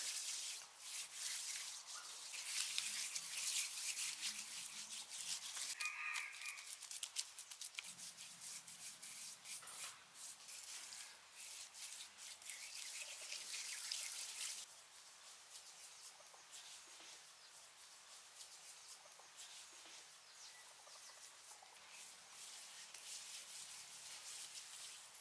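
A bare hand rubbing and smoothing wet mud plaster over a mud dog-house roof: a steady scratchy scrubbing with many small clicks, which stops suddenly a little past halfway, leaving a quieter background with scattered faint clicks.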